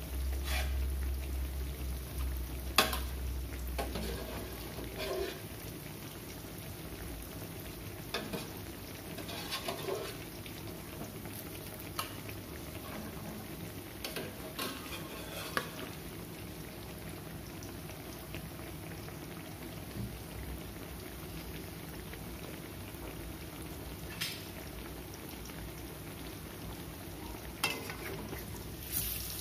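Slices frying in shallow oil in an aluminium wok, a steady sizzle. Scattered sharp metal clinks of a ladle and spatula against the aluminium pot and wok cut through it, the loudest about three seconds in.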